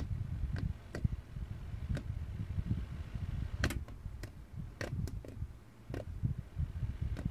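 Small Caframo Dragonfly desk fan running while a cat's paw bats at it: sharp, irregular clicks as the spinning blades strike the paw, bunched together about four to five seconds in, over a low rumble.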